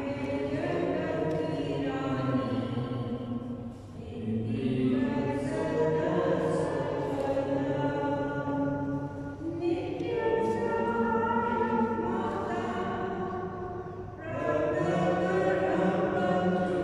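Voices singing a hymn together in long sung phrases, with brief pauses about four and fourteen seconds in.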